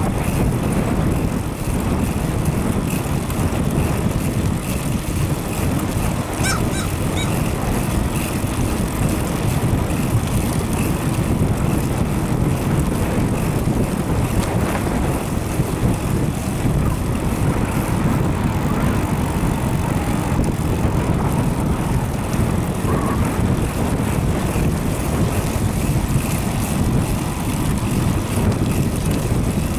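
Wind rushing over the microphone of a camera on a moving bicycle, a steady low rumble.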